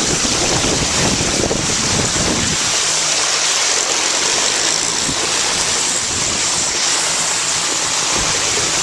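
Steady rush of water and wind as a bicycle rides through flooded street water in gusty tropical-storm wind. Wind buffets the microphone heavily for the first two seconds or so, then eases to a steadier hiss.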